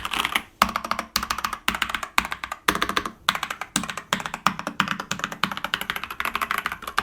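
Keys of a Marvo mechanical keyboard being typed on rapidly, a fast stream of clicky keystrokes with a few brief pauses.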